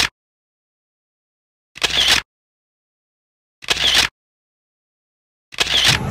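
Camera shutter sound effect clicking three times, each an identical short click about two seconds apart, with dead silence in between.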